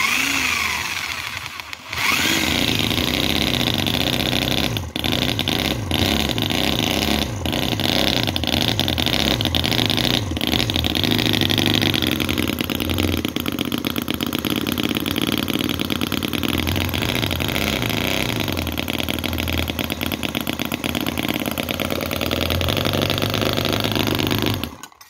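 Microcosm R28 model 45-degree V-twin petrol engine (4.3 cc, brass and stainless steel) spun up by an electric drill on its crankshaft, then running on its own with a fast rhythmic beat, its speed changing as the throttle is worked, until it cuts off suddenly near the end.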